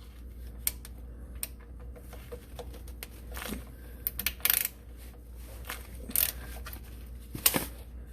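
Scattered metallic clicks and taps of a 14 mm wrench being fitted to and worked on a car's oil drain plug, about six sharp knocks spread irregularly over a few seconds.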